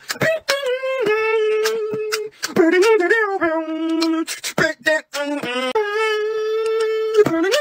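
Vocal beatboxing by one voice: long held, hummed notes that slide between a few pitches, broken up by sharp clicking mouth-percussion hits.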